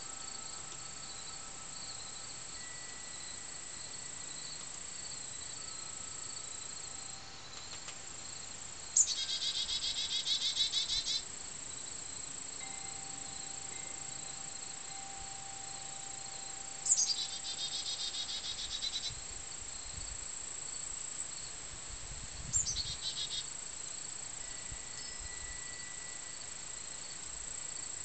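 Steady high-pitched chorus of crickets and other insects. Three louder buzzy calls cut in, each starting with a quick downward sweep: one of about two seconds some nine seconds in, another of about two seconds near the middle, and a short one later. Faint, drawn-out wind chime tones ring now and then.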